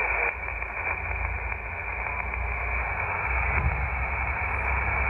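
Xiegu X5105 shortwave transceiver's speaker hissing with receiver band noise as it is tuned down through an empty 40-metre band. The hiss shifts in level a couple of times, over a low rumble.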